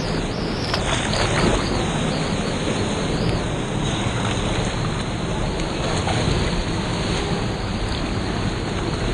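Steady rushing of water, loud and close to the microphone.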